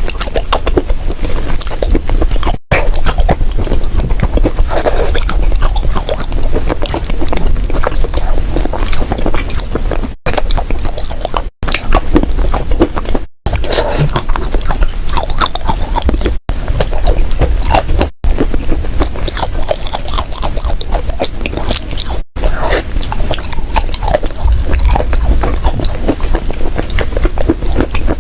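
Close-miked crunching and chewing of dry baked clay: dense crackly bites and grinding chews that run on, broken by several brief silent gaps where clips are spliced together.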